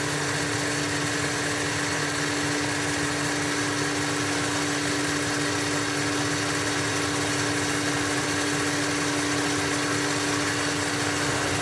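Boxford metal lathe running at a steady speed: a constant hum with one steady tone, unchanging throughout.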